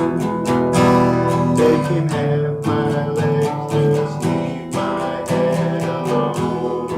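Acoustic guitar strummed in a steady rhythm, with chord changes.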